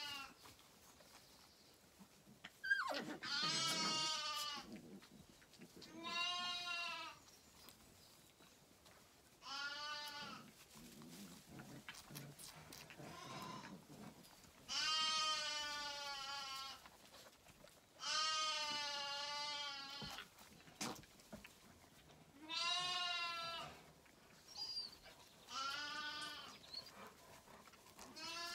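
Zwartbles lambs bleating over and over: about eight quavering bleats of one to two seconds each, a few seconds apart.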